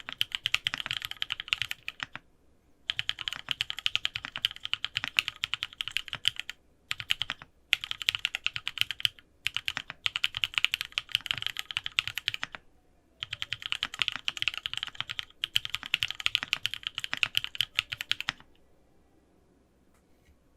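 Typing in quick bursts on a Sangeo65 mechanical keyboard with lubed Cherry Cream switches, 6001 PBT Cherry-profile keycaps, an aluminum plate and case foam. There are short pauses between bursts, and the typing stops about two seconds before the end.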